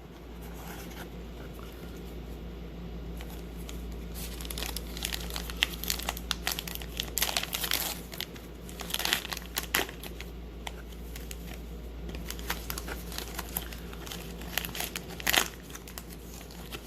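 Wrapper of a 2019 Topps Allen and Ginter baseball card pack being crinkled and torn open by hand. Irregular crinkling and tearing begins about four seconds in and goes on in short bursts, with the loudest rip near the end.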